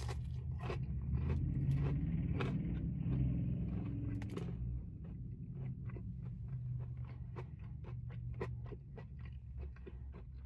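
A person biting into and chewing a fried chicken strip close to the microphone: a few louder crunchy bites in the first four seconds or so, then softer chewing with small clicks a few times a second. A steady low hum runs underneath.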